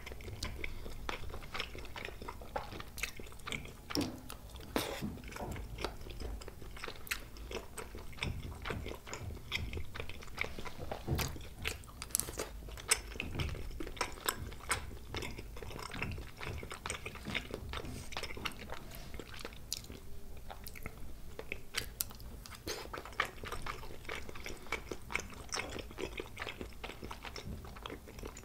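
Close-miked chewing and biting of spicy tteokbokki, chewy rice cakes and fish cake, with many small, irregular mouth clicks throughout.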